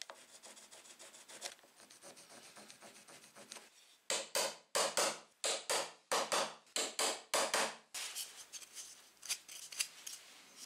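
Wood chisel pushed by hand into a wooden block, paring out a hexagonal recess for a nut. A quick run of scraping, rasping strokes, about three or four a second, starts about four seconds in and lasts some four seconds, with fainter scratching before and lighter strokes after.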